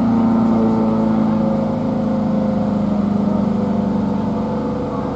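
Federal Signal SD10 electromechanical tornado siren sounding a steady low wail, easing slightly lower in pitch and loudness.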